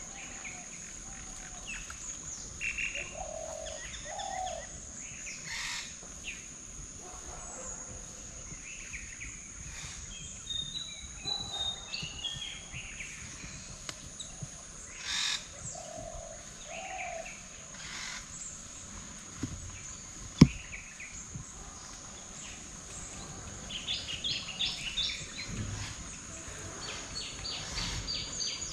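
Several birds calling and singing in the morning: scattered chirps and short phrases, with fast runs of repeated notes near the end, over a steady high-pitched hum. A single sharp click about twenty seconds in.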